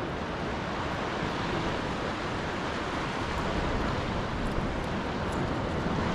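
Surf washing on a beach with wind buffeting the microphone, a steady rushing noise.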